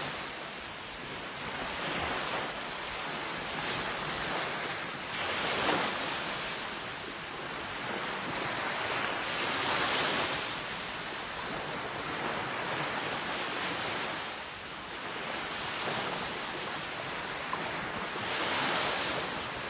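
Small waves breaking and washing up a sandy beach: a steady hiss of surf that swells every four or five seconds as each wave breaks.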